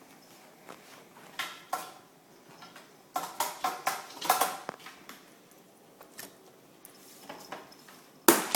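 Light clicks and rattles of a puppy handling small hard cat toys: a couple of sharp clicks, then a second-long burst of jingling, clattering rattles about three seconds in, and a louder clatter near the end.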